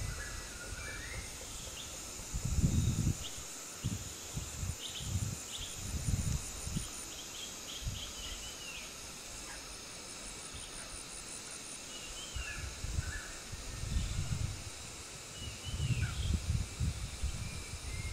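Outdoor ambience of scattered short bird chirps over a steady high-pitched insect drone, with low rumbles coming and going.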